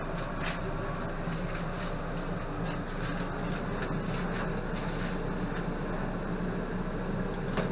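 Steady low machine hum, with a few faint clicks and knocks.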